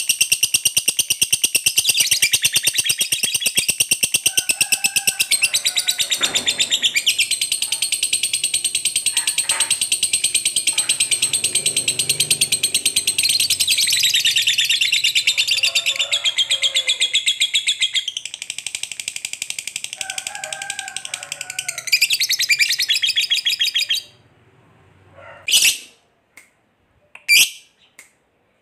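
Lovebird giving its long, rapid, unbroken chattering trill (the 'ngekek panjang' prized by Indonesian keepers), kept up for most of the time. It breaks off abruptly near the end and gives three short single chirps.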